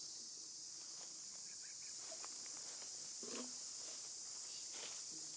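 Steady high-pitched drone of an insect chorus, with a few faint clicks and rustles and a brief low sound about three seconds in.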